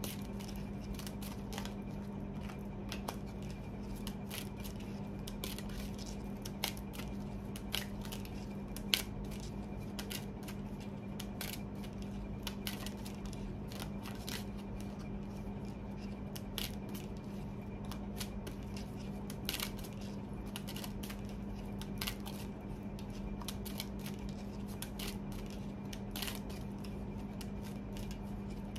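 Tarot cards being shuffled by hand: a long run of irregular light clicks and flicks as the cards slide and tap together, with a few sharper snaps, over a steady low hum.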